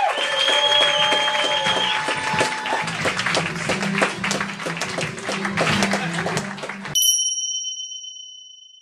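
Audience clapping and cheering, with a steady held tone over the first three seconds. About seven seconds in it cuts off suddenly to a single bright chime that rings and fades out.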